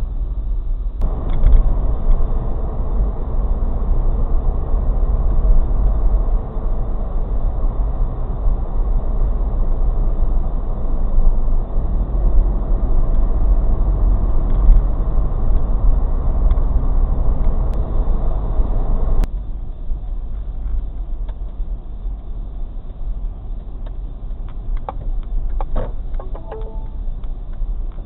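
Road and engine noise inside a moving car's cabin, recorded through a dash cam's microphone: a steady low rumble that drops abruptly to a quieter level about 19 seconds in.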